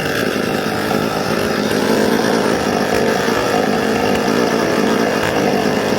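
Small engine of a gas-powered handheld landscaping tool running steadily.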